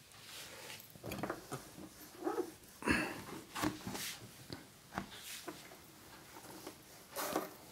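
Whiteboard duster wiped across a whiteboard in short, irregular scrubbing strokes, fairly faint.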